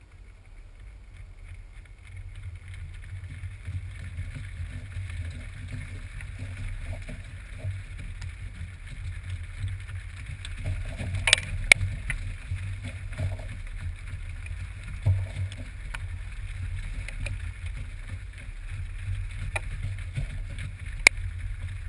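Hooves of a herd of steers moving past close to a ground-level camera in a waterproof housing: a low, muffled rumble that builds over the first few seconds as the herd arrives, with a few sharp knocks about halfway through and one near the end.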